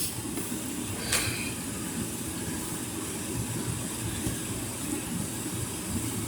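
Steady background hiss and low rumble, with one short rustle or click about a second in.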